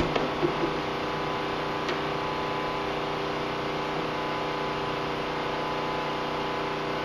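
Steady machine hum with many even tones, like a shop fan or heater running, with a few light clicks of parts being handled near the start and about two seconds in.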